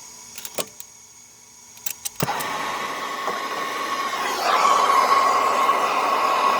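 Handheld torch being lit: a few igniter clicks, then the flame catches about two seconds in and burns with a steady hiss. The hiss grows louder about halfway through as the flame heats a solder-seal heat-shrink connector.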